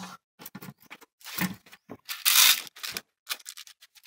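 Intermittent rustling, tapping and clattering from parts being handled. About two seconds in comes a louder noisy rasp lasting about half a second.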